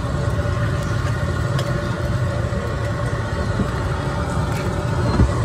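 Egg frying on a large flat steel griddle, under a steady low rumble with a few faint clicks.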